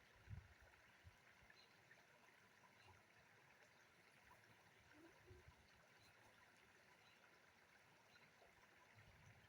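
Near silence: faint outdoor background hiss, with a soft low thump about a third of a second in.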